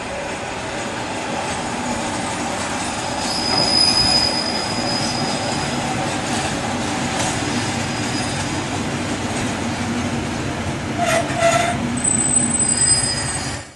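Single-car JR diesel railcar running into a station and braking, its engine and wheels on the rails steady, with thin high wheel squeals about four seconds in and again near the end. A short tone, likely a brief horn toot, sounds about eleven seconds in.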